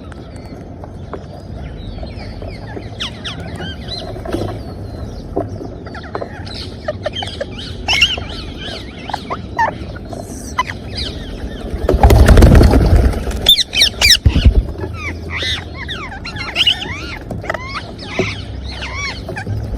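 Parrots chirping and whistling in many short, quick calls. About twelve seconds in, a loud noisy flurry of wing-flapping or scuffling lasts a second or two, with a few more loud strokes just after.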